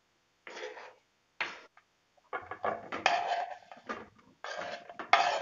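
A steel knife scraping across a wooden cutting board, pushing squares of raw dough onto a steel plate: a few short scrapes at first, then a denser run of scraping and light clatter through the second half.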